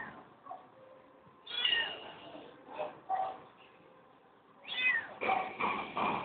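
Young kitten mewing: a few short, high-pitched mews, each falling in pitch.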